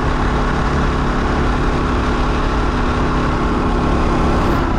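Honda XR600R's single-cylinder four-stroke engine running steadily as the dirt bike cruises down the road.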